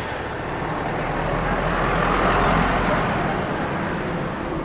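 A motor vehicle passing close by in street traffic. Its noise grows to a peak about halfway through, then fades.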